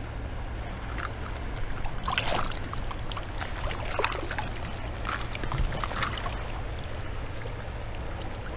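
Fast-flowing river rapids running steadily, with water sloshing and splashing close by several times between about two and six seconds in.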